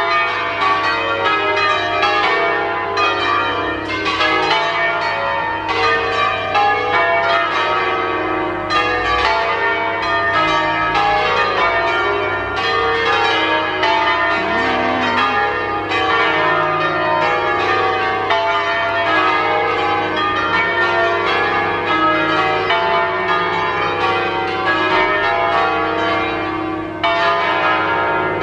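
The eight bronze church bells of the Sacro Cuore di Gesù tower in Turin, a ring in E-flat, swinging and ringing together in a steady, continuous peal of overlapping strokes.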